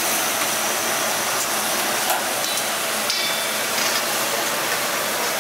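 Chicken karahi sizzling in a steel wok over a high gas flame, a steady hiss, with a metal ladle scraping and clinking against the wok a few times.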